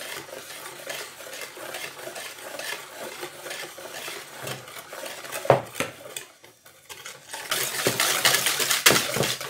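Wire whisk beating a runny batter of eggs, sugar, oil and drinking yogurt in a plastic bowl, a rapid clicking and scraping against the bowl. A single knock comes about halfway through, then a short pause, and the whisking picks up louder and faster near the end.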